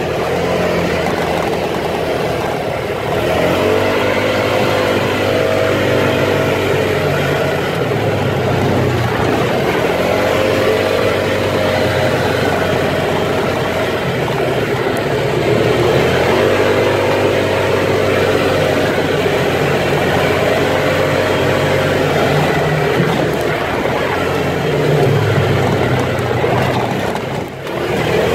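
An off-road vehicle's engine running under load on a rough dirt trail, its revs rising and easing off several times as it is driven over the bumps.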